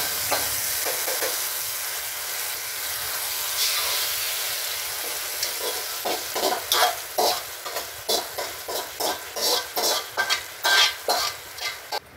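Tempering of mustard seeds, urad dal, dried red chillies and curry leaves in hot coconut oil sizzling as it is poured over jackfruit erissery, a steady hiss for about six seconds. Then a steel spoon scrapes and knocks against the pans about twice a second as the tempering is stirred into the curry.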